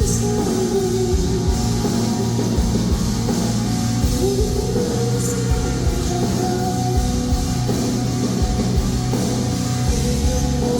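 Rock music from a live concert band: drum kit and guitar playing loudly and steadily.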